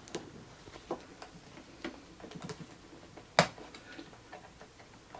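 Small clicks and taps of multimeter test leads, banana plugs and alligator clips being handled and moved, with one sharper click about three and a half seconds in.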